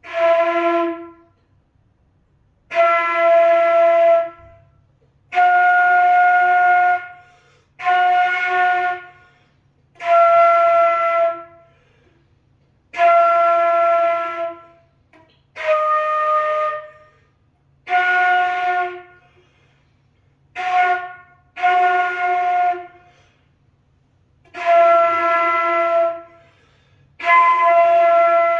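A wind instrument plays held practice notes on D, each about a second long with short pauses between, about a dozen in all. The notes alternate between the low register and the octave above.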